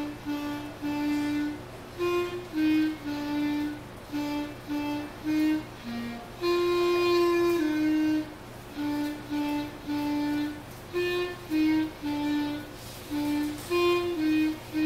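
A student's solo clarinet playing a simple melody in short, separated notes, mostly repeating one or two pitches, with one longer held note about halfway through.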